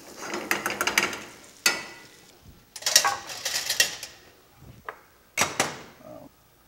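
Metal kitchen utensils and cookware clattering and scraping in quick rattling runs, three short bursts with a sharp knock between the first two.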